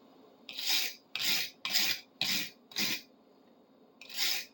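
Hand wire brush scrubbing back and forth over the rusted, pitted steel of a screwdriver to clean out the pitting, about two scraping strokes a second, with a pause of about a second before one more stroke near the end.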